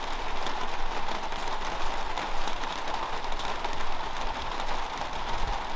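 Steady light rain falling on the garden, heard as an even hiss with many small drop ticks.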